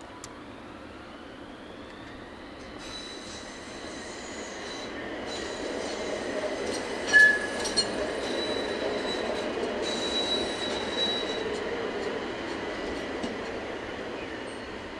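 Toyama Light Rail Portram low-floor tram passing by: its electric motor whine rises in pitch as it gets under way, then the wheels squeal steadily and high on the rails as it goes past, with one short, sharp, loud squeal about halfway through.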